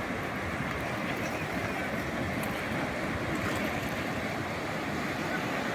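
Calm sea waves washing ashore: a steady, even rush of surf.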